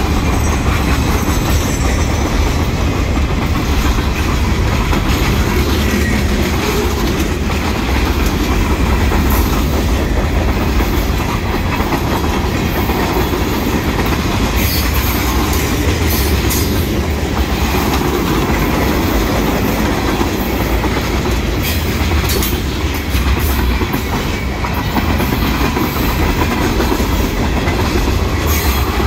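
Freight train's boxcars and tank cars rolling past close by: a steady rumble of steel wheels on rail, with scattered clicks and clanks as the wheels pass over the track.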